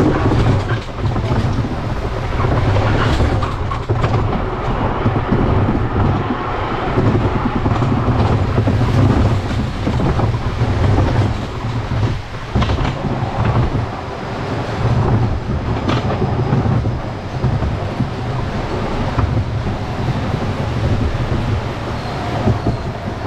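Wild Mouse roller coaster car rolling along its steel track, a loud continuous rumble and rattle with sharp clacks now and then as the wheels run over rail joints and curves.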